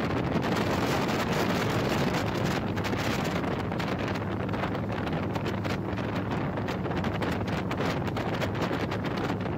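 Wind buffeting the microphone of a camera carried on a moving motorcycle, over the steady low drone of the motorcycle's engine and tyres at cruising speed.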